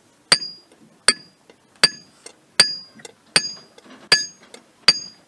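Blacksmith's hand hammer striking metal on a small anvil in a steady rhythm, seven blows about three-quarters of a second apart, each with a short bright metallic ring.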